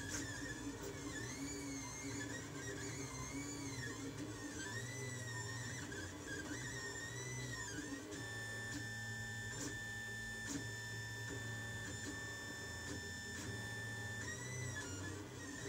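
Lulzbot Mini 3D printer running a print: its stepper motors whine in tones that swoop up and down as the print head changes speed through curved moves, then hold steady pitches for several seconds, over a steady low hum.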